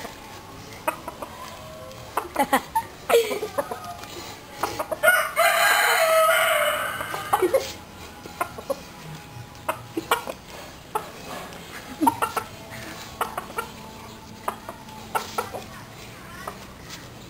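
Rooster crowing once, a long call of about two seconds some five seconds in, with short clucks and sharp clicks scattered before and after.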